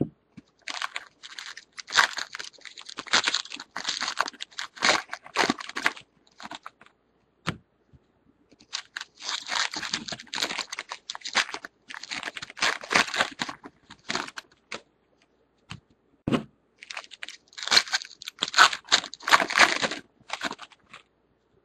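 Foil wrappers of baseball card packs crinkling and tearing as they are ripped open by hand, in three bouts with short pauses between.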